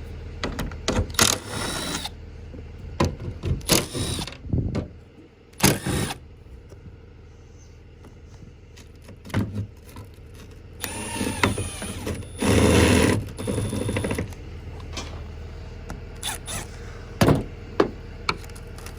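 Hand tools working on corroded bolts in a truck's engine bay: scattered metal clicks, knocks and clanks, with a denser noisy stretch of about three seconds past the middle.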